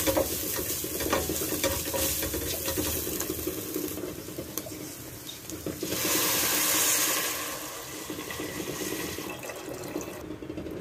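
Shredded chicken and onions sizzling in a stainless steel pot as they are stirred with a wooden spatula, then chicken broth poured in, a loud rushing pour about six seconds in.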